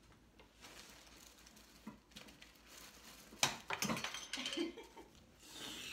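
Rustling and scattered light knocks of things being handled, growing louder and busier about three and a half seconds in.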